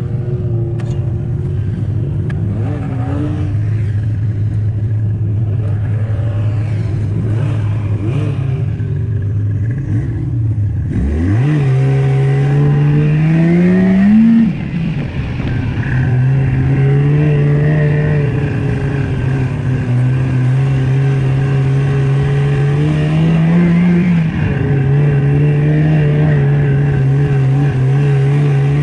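Snowmobile engine running steadily under way. About eleven seconds in it revs up hard in a long rising sweep, then drops off sharply. It settles at a higher steady pitch and climbs and falls back once more near the end.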